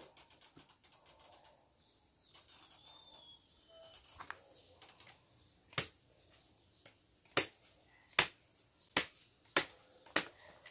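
Machete chopping hands of green bananas off the stalk on a wooden plank: six sharp chops over the last five seconds, with faint bird chirps before them.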